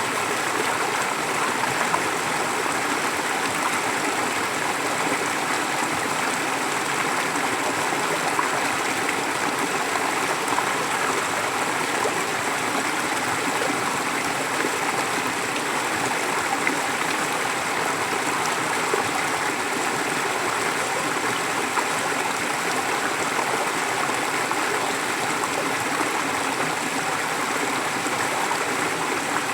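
Forest stream flowing steadily, an even, unbroken rush of running water.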